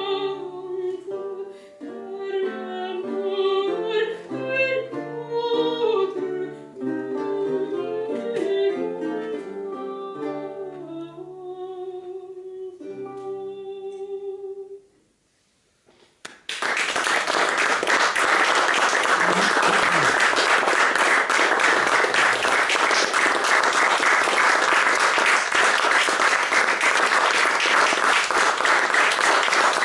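A mezzo-soprano sings a Renaissance chanson, accompanied by a lute and a vihuela. She ends on a long held note about halfway through. After a moment of silence, an audience breaks into steady applause.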